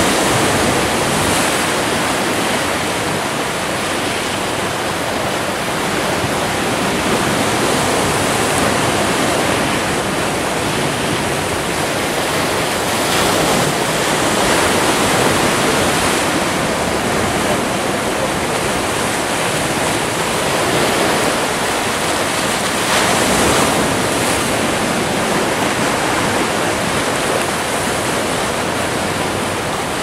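Sea surf washing over and around shoreline rocks: a steady rush of breaking waves that swells and eases every few seconds.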